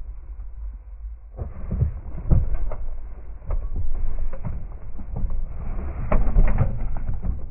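Irregular knocks and thumps on a fishing boat over a low rumble, getting louder about a second and a half in.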